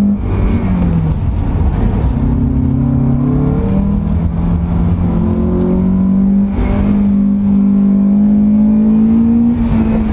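A car engine working hard through an autocross course. Its pitch falls early on, climbs about two seconds in and drops sharply near four seconds, then holds fairly steady with a brief dip at about six and a half seconds. Wind rumbles on the outside-mounted microphone throughout.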